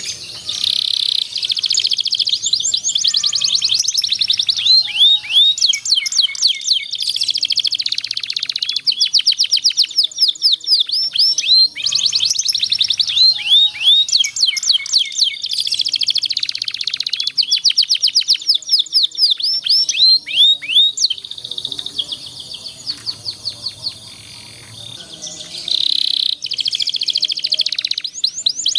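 Domestic canary singing long rolling trills: fast runs of repeated high notes and quick falling chirps that go on almost without a break, thinning out briefly about three-quarters of the way through. It is the kind of long-rolling song used as a master for young canaries learning to sing.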